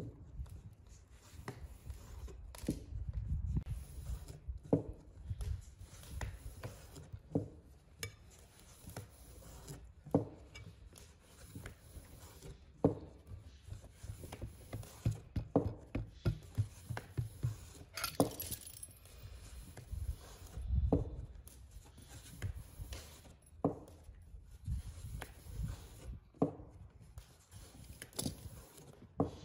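Hand-made kutab being assembled: a metal spoon tapping and scraping as it spreads filling over dough and clinks on the glass bowl, and hands patting the folded dough on a silicone mat. A string of sharp taps and clicks, one every second or so, over a low rumble.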